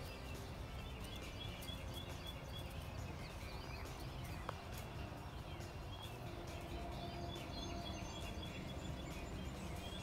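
Faint outdoor ambience: a low steady rumble with small birds giving short, high chirps again and again.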